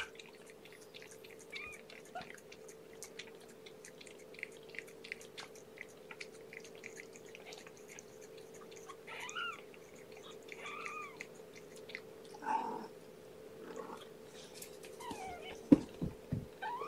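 A mother cat licking a two-and-a-half-week-old kitten, with many small wet clicks, and the kitten giving a few faint, high mews around the middle. A steady low hum runs underneath, and there is a short thump near the end.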